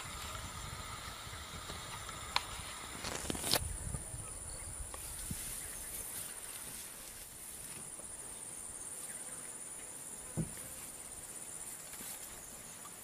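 Insects trilling steadily at a high pitch, with a few sharp clicks about two and three and a half seconds in and again near ten seconds. A low noise underneath dies away about six seconds in.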